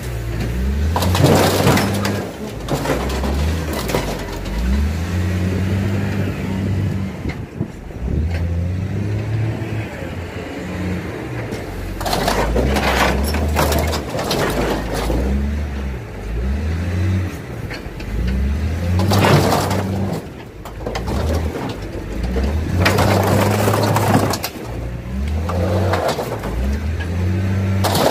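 A heavy machine's engine working its grapple claw, the note rising and falling as the hydraulics take load. Several bursts of crunching and tearing sheet metal come as the claw rips into and folds the front of a wrecked truck.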